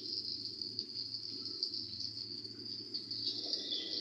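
Steady high-pitched chirring of crickets, with a faint low hum beneath.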